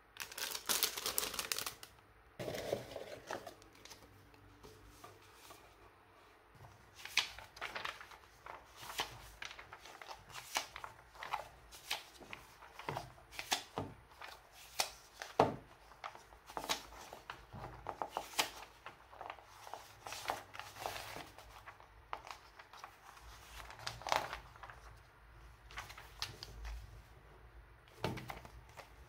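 Plastic bags crinkling in the first few seconds, then scattered light clicks and taps as the plastic model kit's parts runners and box contents are handled.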